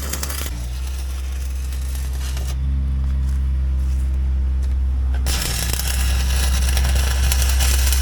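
An engine running steadily at idle, a deep, continuous low rumble. A hissing layer over it drops away about half a second in and comes back about five seconds in.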